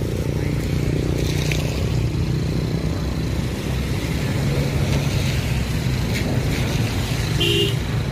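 Road traffic beside the ditch: a motor vehicle's engine running steadily close by, a continuous low hum.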